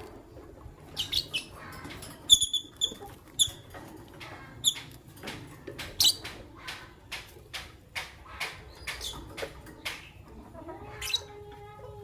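Lovebirds (an albino and a pastel green Fischer's lovebird) chirping: a busy run of short, sharp, high-pitched chirps and squeaks. A lower, drawn-out call comes in near the end.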